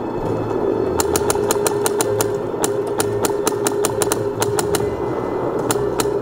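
Paintball markers firing in rapid strings of sharp cracks, about six or seven shots a second, with short pauses between strings, over a steady hum.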